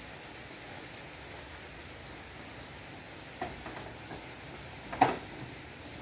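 Clay roof tiles knocking against each other as they are shifted about on the roof overhead: a few light clicks about three and a half seconds in, then one sharp clack about a second later, over a steady hiss.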